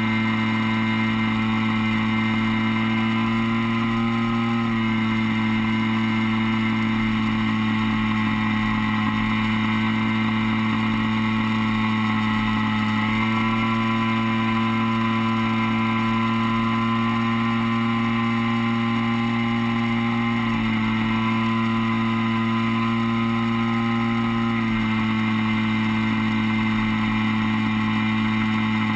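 RC DHC-2 Beaver's DLE 30 single-cylinder two-stroke gas engine running at steady cruise throttle, heard from the onboard camera in flight. Its pitch drops slightly about five seconds in, rises again about thirteen seconds in, then drops and rises once more around twenty and twenty-five seconds in.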